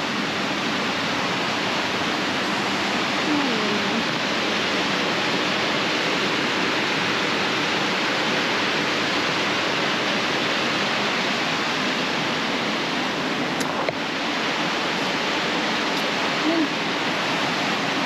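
Waterfall rushing steadily, an unbroken hiss of falling water.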